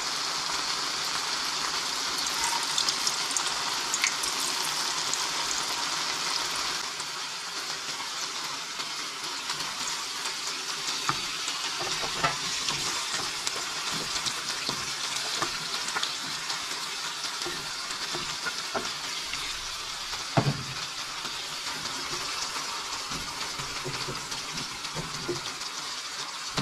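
Food frying in hot oil in a frying pan, a steady sizzle that eases slightly about seven seconds in. Scattered metal clinks and knocks of a pot and utensils against the pan, with one sharp knock about twenty seconds in.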